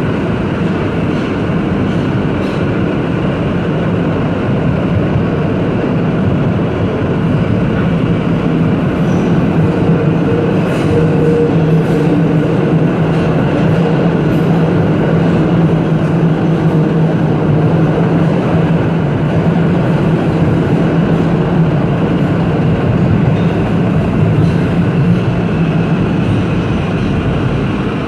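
New York City subway train (Q train) running through a tunnel, heard from inside the rear car: steady wheel-on-rail noise with a steady low hum, a little louder in the middle stretch.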